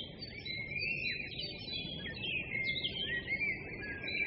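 Birds chirping and warbling, a busy stream of quick, high, gliding notes, over a faint low hiss.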